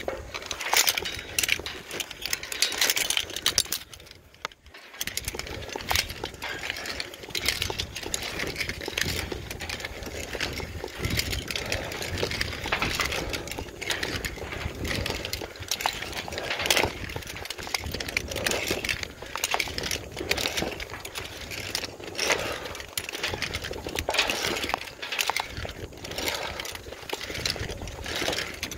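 Climbing gear, metal hooks and fittings, clinking and rattling against a steel tower in many irregular sharp clicks over a steady rough noise.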